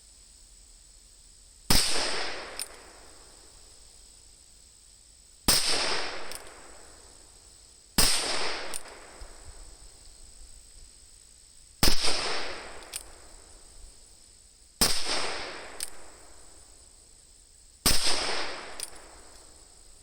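Six shots from a Ruger Super Wrangler single-action revolver firing .22 Magnum, spaced about three to four seconds apart, each sharp crack trailing off in about a second of echo.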